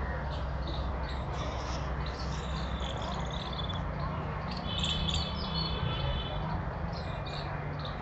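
Birds chirping in the surrounding trees: many short high chirps, with a longer trilled call about three seconds in and a stronger one about five seconds in, over a steady low rumble.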